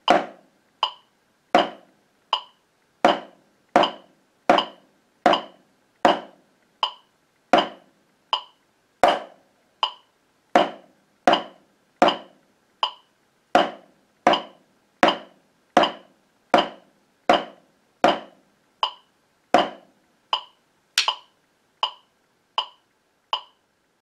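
Wooden drumsticks tapping a drum practice pad in time with a metronome ticking at 80 beats per minute. The taps come about every three-quarters of a second, a few of them lighter. They stop shortly before the end.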